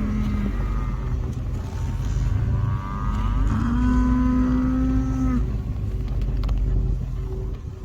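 Cattle mooing: a short low call right at the start, then one long, steady moo beginning about three seconds in. A steady low rumble runs underneath throughout.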